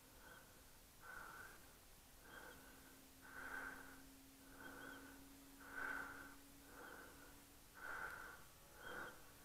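Near silence: faint soft puffs about once a second over a faint steady hum.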